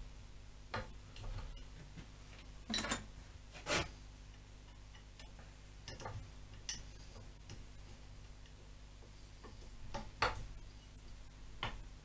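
Aluminium strips and a piece of angle iron handled on a bending jig, giving a scattering of short, irregular metallic knocks and clinks.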